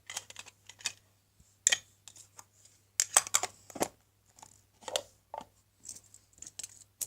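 Irregular clicks, knocks and rustling of fidget spinners being handled and packed into a bag.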